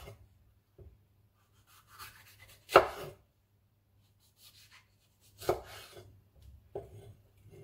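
Kitchen knife slicing a red bell pepper on a wooden chopping board: a few sharp knocks of the blade on the board, the loudest about three seconds in, with softer cutting sounds between them.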